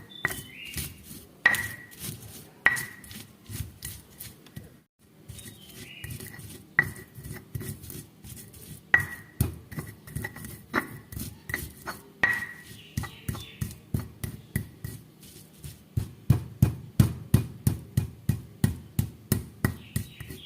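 Sambal of fried peanuts, chillies, kencur and salt being pounded and ground with a pestle in a mortar: repeated knocks, some with a short ring, pausing briefly a few seconds in, then a steady run of about three to four strokes a second near the end.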